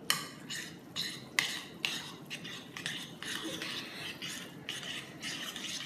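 Metal utensils stirring instant noodles in a bowl: short scrapes and clinks against the bowl, about two a second, as the seasoning and Sprite are mixed in.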